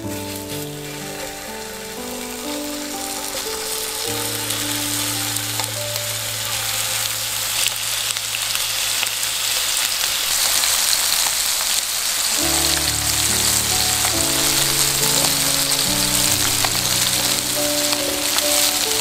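Raw chicken thigh pieces sizzling in hot olive oil in a frying pan, the sizzle growing steadily louder. Soft background music plays slow notes underneath.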